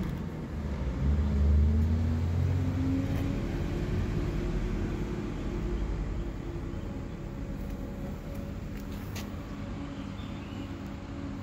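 A motor vehicle's engine rumbling, loudest about a second and a half in and then slowly fading.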